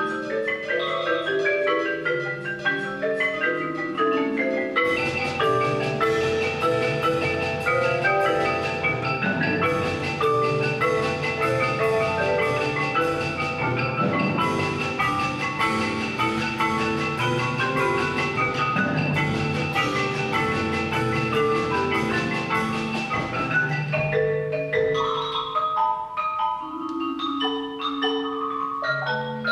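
Percussion ensemble playing a concerto for marimba: marimbas and other mallet keyboard instruments play quick, dense runs of struck notes. About five seconds in, the full ensemble thickens the texture with sharp struck hits. It thins out again near the end to sparser mallet notes.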